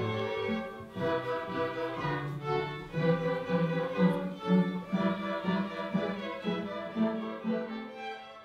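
Youth string orchestra of violins and cellos playing a piece, with a steady low string line under the melody. It fades out near the end.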